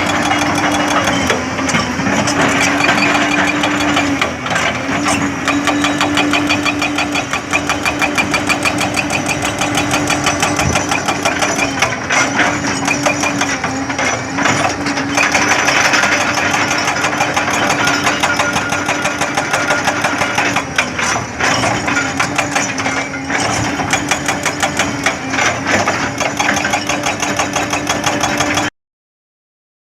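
Hyundai 220-9 hydraulic excavator's diesel engine running, with a steady whine that sags briefly several times as if under load. The sound cuts off suddenly near the end.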